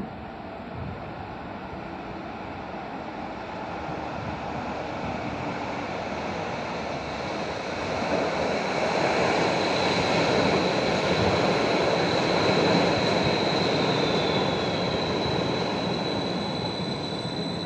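Bogestra B80D light-rail train pulling into an underground station: the rumble of its wheels on the rails grows louder as it comes out of the tunnel and is loudest as it runs along the platform. A steady high whine joins in about nine seconds in.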